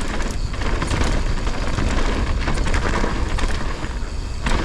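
Mountain bike riding fast down a dirt trail: wind buffeting the microphone and tyres rumbling over the ground, with frequent knocks and clatter from the bike over bumps.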